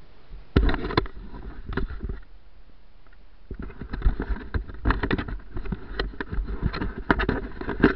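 Handling noise of a small body-worn camera being picked up and carried on foot: irregular knocks, rubbing and low thumps against the microphone, beginning suddenly about half a second in, with footfalls through grass.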